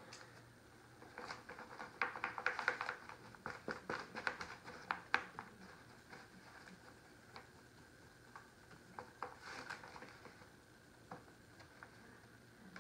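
Adhesive vinyl sheet crinkling and crackling as it is handled and pressed onto a board: a quick run of crackles in the first few seconds, then scattered ones, with another short cluster near the end.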